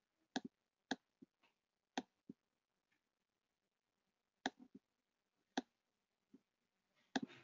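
Computer mouse clicking: about six sharp single clicks spread irregularly over near silence, a couple of them followed closely by a softer second click.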